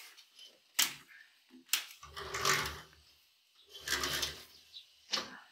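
Sliding window being unlatched and slid open: a few sharp clicks from the latch and frame, and two rolling rumbles, about two and four seconds in, as the sash runs along its track.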